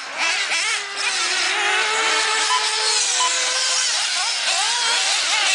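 Several 1/8-scale off-road RC buggies' small nitro engines running on the track, revving up and down as they accelerate and brake, their overlapping whines rising and falling.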